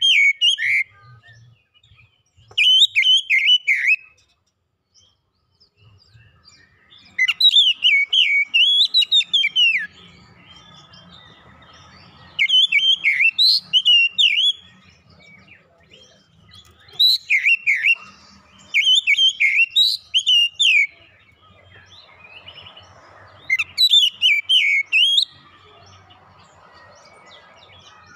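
Oriental magpie-robin singing loudly in a series of phrases of quick, sweeping whistled notes, each phrase lasting one to three seconds with pauses of a few seconds between.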